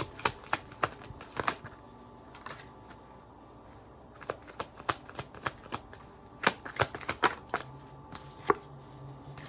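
Tarot cards being shuffled and handled: a run of sharp card clicks and snaps in the first second and a half, a few scattered ones, then another run from about halfway through.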